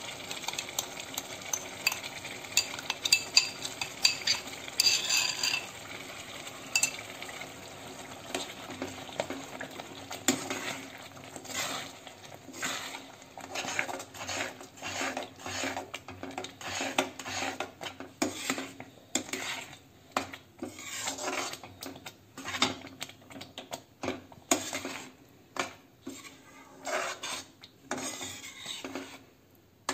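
A metal spatula stirs thick spinach purée into a tomato-onion gravy in a kadai, scraping against the pan, over a faint sizzle. After a few seconds of clinks as the purée goes in, the stirring settles into steady strokes about twice a second.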